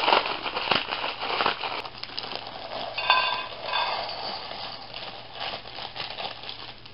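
Dry ramen noodle block in its plastic packet being crushed and broken up, a dense crunching and crinkling that is loudest in the first couple of seconds and then fades. About three seconds in there is a short squeaky scrape as the noodles are handled over the stainless steel camping cup.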